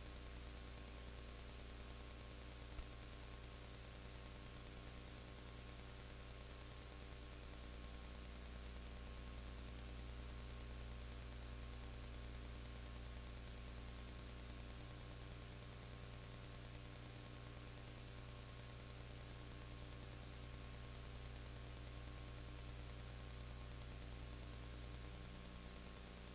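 Faint steady electrical hum with hiss, with no sound of the game, and one small click about three seconds in.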